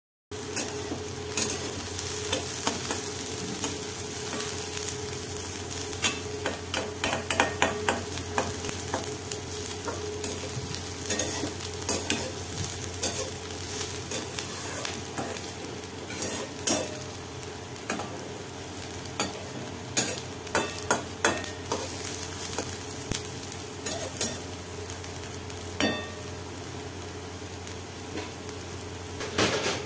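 Chopped bottle gourd peel stir-frying in a kadai: a steady sizzle, with a metal spatula scraping and clicking irregularly against the pan. The sound starts abruptly a moment in.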